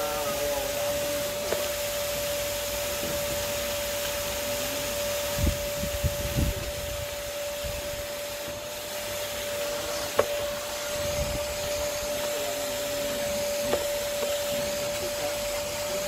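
Vacuum cleaner running steadily with a high, even whine while vacuuming a car's interior. A few low thumps come about five to six and a half seconds in, and a sharp knock about ten seconds in, as the nozzle bumps the seats and floor.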